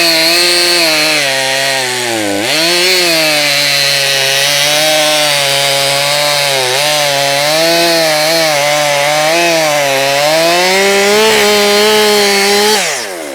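STIHL MS 400 C two-stroke chainsaw cutting through cedar at full throttle under hard feed pressure, its pitch wavering as it loads, with a short dip about two and a half seconds in that it pulls back out of. Near the end the throttle is let off and the engine speed falls away quickly.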